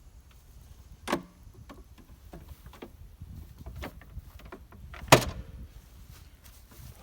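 Two sharp knocks about four seconds apart, the second the loudest, with lighter clicks and rattles between, from the lawn mower's grass catcher bag being handled while it is emptied and refitted.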